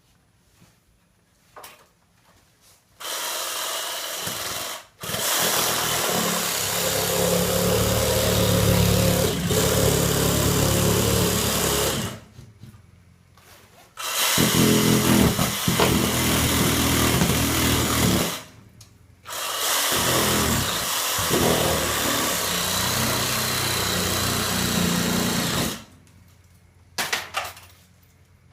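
Handheld power tool cutting into a garage wall to open it up, run in four bursts of several seconds each with short pauses between.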